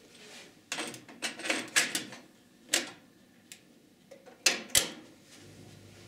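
Mayak-232 stereo cassette deck being loaded: a series of plastic clicks and clatters as a cassette goes into its holder, a knock, then two sharp clicks about four and a half seconds in as a transport key is pressed. A faint steady hum of the tape mechanism starts just after.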